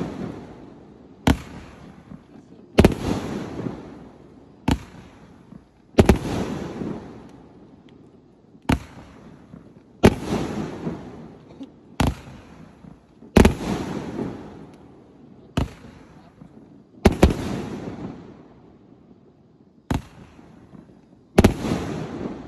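A 288-shot Jiang Feng Cai Jin fireworks cake firing its shots one after another, about a dozen sharp bangs one to two seconds apart. Each bang trails off over about a second.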